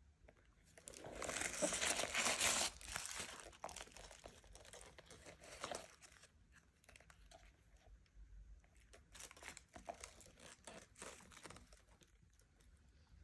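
Tissue paper and plastic wrapping crinkling and rustling as the bag is handled, in uneven flurries, loudest a second or two in and again near the end.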